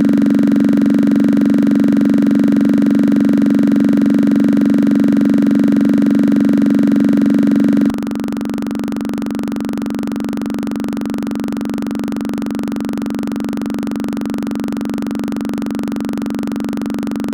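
A loud, steady buzzing tone at one unchanging pitch. It starts abruptly and drops in loudness about eight seconds in, then carries on.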